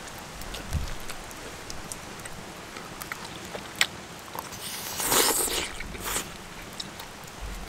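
Someone eating off a camp plate with a metal spoon: a few light clicks of the spoon and quiet chewing, with a short breathy noise about five seconds in.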